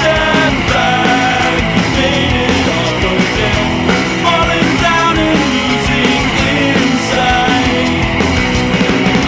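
Rock music with singing and a steady loud band sound.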